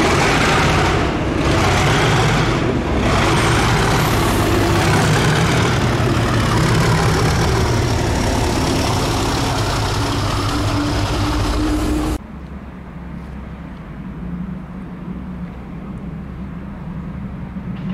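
Class 37 diesel-electric locomotive passing close under power, its English Electric V12 diesel engine loud with a steady low tone over wheel and rail noise. About two thirds through the sound drops suddenly to the quieter, steady hum of a distant Class 52 'Western' diesel-hydraulic locomotive approaching.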